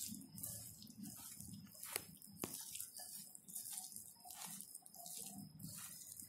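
A hand squishing sliced onions into a thick, damp gram-flour batter in a glass bowl: faint wet squelching about twice a second, with two sharp clicks about two seconds in.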